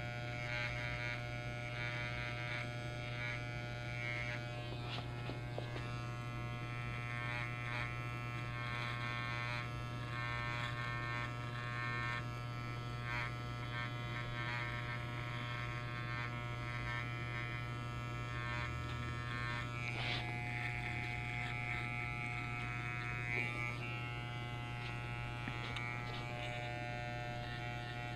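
Electric hair trimmer buzzing steadily as it is run along the neckline to put in the line, with scattered light ticks from the blade.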